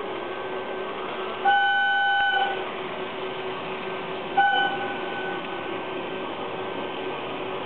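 A locomotive-style horn sounds twice, first a held blast of about a second, then a short toot about three seconds later. Under it runs the steady hum and whirr of an N-gauge model electric locomotive and its freight cars running on the layout.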